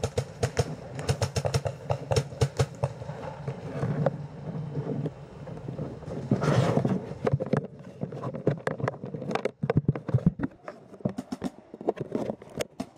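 Paintball markers firing in quick, irregular sharp pops, with a short rushing noise about six and a half seconds in.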